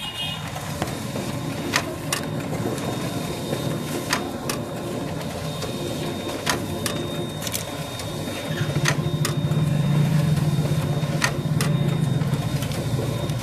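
Canon photocopier printing copies: a steady mechanical hum with sharp clicks about every two seconds, often two close together. The hum grows louder about two-thirds of the way through.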